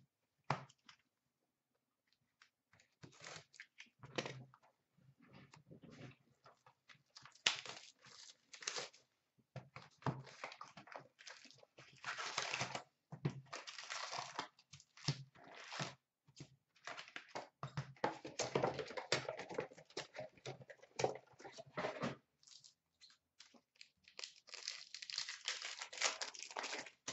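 A cardboard box of hockey card packs being opened and the packs handled: irregular rustling, crinkling and tearing of cardboard and pack wrappers, busiest in the middle, with a pack wrapper being torn open near the end.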